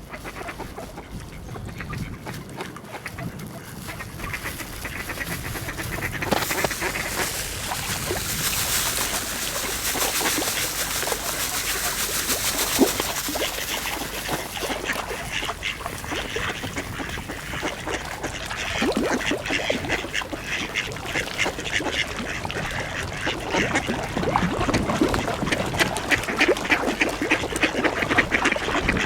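A flock of mallard ducks quacking, many calls overlapping, the chorus growing louder and busier as it goes on.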